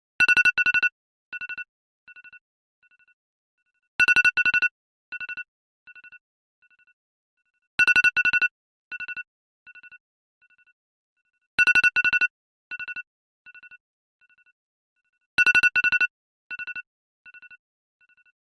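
iPhone alarm tone ringing: a bright electronic chime with two loud beeps followed by three or four fainter and fainter echoing repeats. The group comes about every four seconds, five times over.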